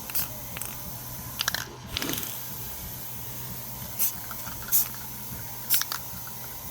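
Short crunchy clicks and crackles, scattered irregularly about half a dozen times, over a faint steady hum.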